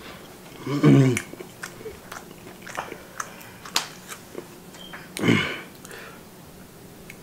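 A person chewing a chicken wing with the mouth closed: small wet clicks and smacks. Two short voice sounds come about a second in and about five seconds in.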